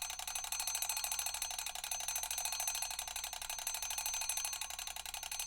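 Mechanical alarm clock bell ringing, its hammer striking the bell in a rapid, continuous rattle with a steady metallic ring.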